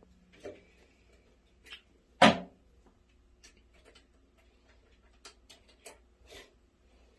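Scattered light clicks and taps from handling, with one louder knock a little over two seconds in.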